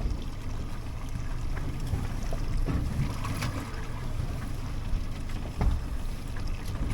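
Wind buffeting the microphone over water slapping a small boat's hull in choppy seas, with a few sharp knocks.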